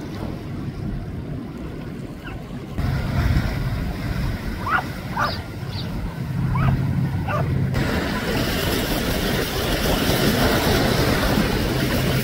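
Harbour water and wind noise on the microphone with a boat's low engine hum. A few short high chirps come in the middle, and the sound changes abruptly twice.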